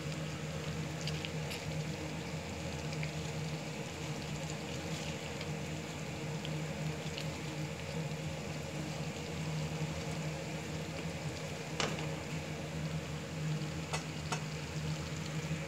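Rice noodles with sardines in sauce bubbling steadily in an aluminium pan on a gas stove, being stirred with a wooden spatula, as the liquid cooks down. A steady low hum runs underneath, and a few sharp clicks come near the end.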